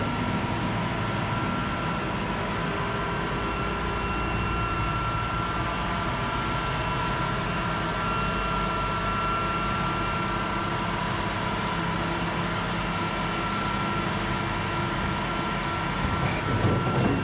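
Machinery running with a steady hum and a low rumble, with several steady whining tones over it. It gets briefly louder and rougher near the end.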